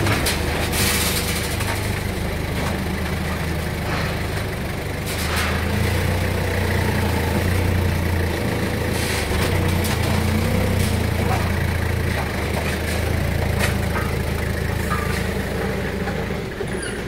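Komatsu forklift's engine running steadily at low revs, with a few sharp knocks along the way.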